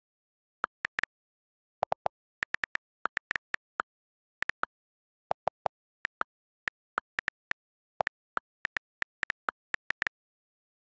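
iPad on-screen keyboard key-click sounds as a search query is typed: a run of short, sharp clicks at an uneven typing pace, a few of them lower in pitch than the rest, with dead silence between.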